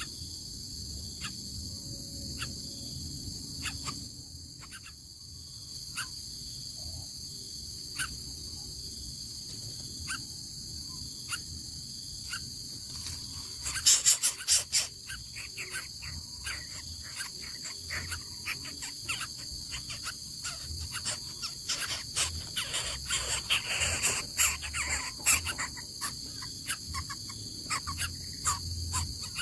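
A steady, high-pitched insect chorus, likely crickets, runs throughout, with scattered clicks. Short bursts of bird calls come through about halfway in and again more often toward the end.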